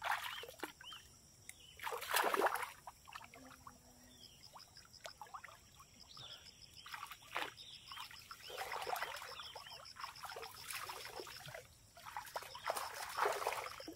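Water splashing and sloshing as a person wades into a shallow swamp pond and bathes, in irregular splashes, the loudest about two seconds in and a run of them near the end. A high, steady insect trill sounds in the background from about four seconds in.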